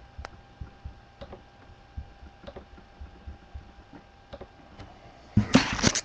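Faint scattered ticks over a steady low hum, then about five seconds in a loud crinkling as the plastic wrapper of a trading-card pack is handled to be opened.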